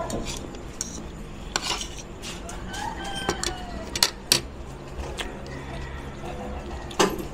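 A spoon and fork click and scrape against a ceramic plate while eating, in a few sharp clinks. A rooster crows faintly about three seconds in.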